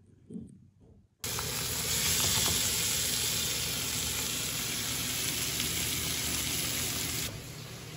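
Slices of pork belly sizzling in hot fat in a frying pan: a steady sizzle that starts suddenly about a second in and drops to a lower level near the end.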